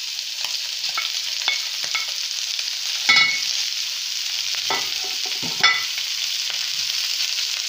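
Sliced bell peppers and onions sizzling in a hot wok while a wooden spatula stirs them: a steady sizzle with small scrapes and taps, and two louder knocks about three and five and a half seconds in.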